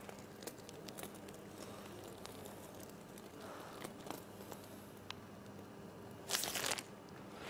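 Faint soft squishing of chocolate mousse being squeezed from a piping bag, over a steady low hum, with a few small clicks and a short hiss about six seconds in.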